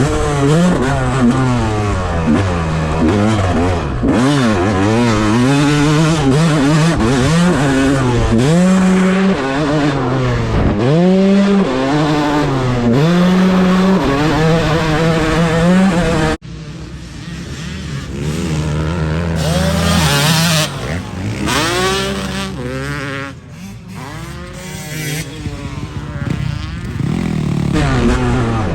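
Dirt bike engine on a motocross track, revving up and dropping back again and again as it is ridden. About halfway through, the sound cuts suddenly to a quieter, more distant engine with a hissing rush, which swells again near the end.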